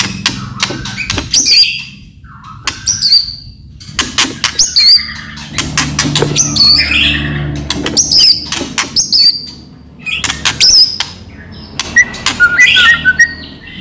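White-rumped shama (murai batu) in full song, loudly: rapid runs of sharp clicking rattles (cetrekan) mixed with high whistled notes that slide up and down. The song comes in several bursts with short pauses between them.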